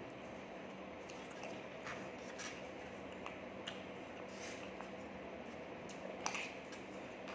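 Metal spoon scraping and clicking against a foam takeaway box while scooping rice, in scattered small scrapes and clicks, with a sharper click about six seconds in. A steady faint hum runs underneath.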